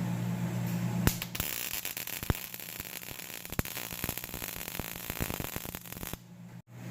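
Electric welding arc crackling and sputtering for about five seconds as the new muffler is welded into the exhaust pipe, then stopping.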